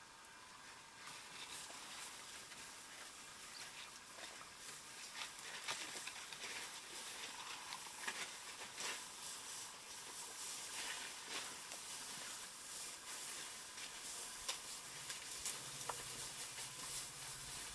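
Dry grass and brush crackling and rustling as elephants walk and feed close by, many small snaps over a steady hiss. A faint low hum comes in late.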